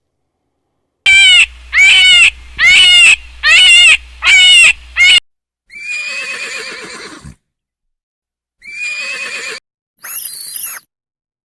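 Farm animal calls: five loud, short, high-pitched calls in quick succession, then three more separate calls.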